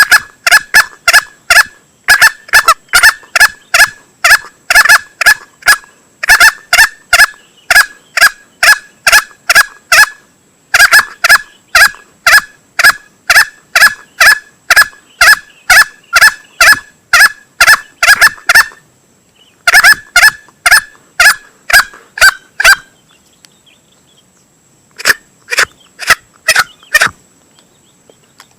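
Male green junglefowl clucking from a hunting lure call recording: sharp, rapid clucks about three to four a second, in long runs broken by brief pauses.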